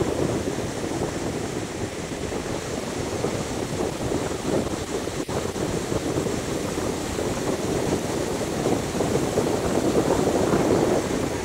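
Ocean surf breaking and washing up a sandy beach, with wind buffeting the microphone. The wash swells louder near the end.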